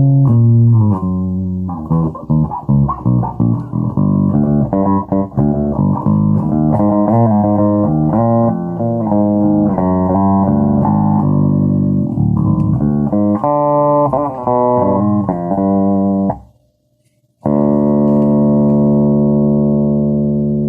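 Electric bass played through a recently repaired Markbass 1x12 combo amplifier with a tweeter: a run of quick plucked notes, cut off suddenly about sixteen seconds in, then after a second's silence one long held note or chord ringing out.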